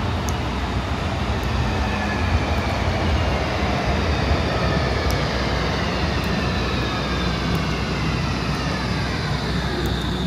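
Electric tram pulling into a covered platform and slowing, its drive whine falling in pitch over several seconds above a steady low rumble.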